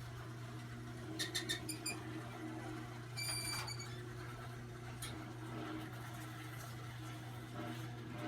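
Old Chamberlain half-horsepower garage door opener running steadily with a low hum as it opens the door, with short squeaks about a second in and again about three seconds in.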